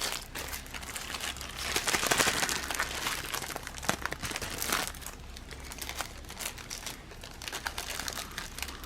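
Plastic packaging of a diamond painting kit crinkling and rustling as it is handled and opened, in irregular spells, busiest about two seconds in and again around five seconds.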